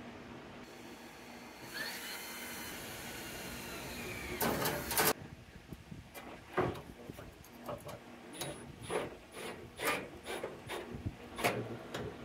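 Milwaukee M12 cordless drill whining as it spins up and runs, then a harsher second or so as it bites into a 304 stainless steel trim strip. After that comes a string of irregular knocks and scrapes as the metal strip and the tool are handled.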